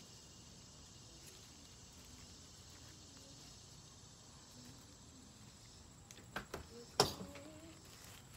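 Quiet outdoor background, then a few sharp clicks and crinkles about six seconds in, with the loudest about seven seconds in, from gloved hands handling freshly cut basil and a plastic bag.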